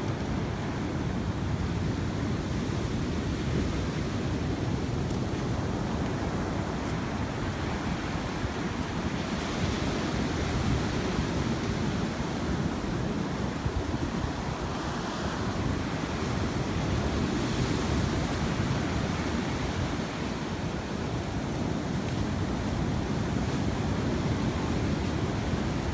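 Sea surf washing onto the shore, with wind rumbling on the microphone; the noise is steady, with a few louder washes of waves along the way.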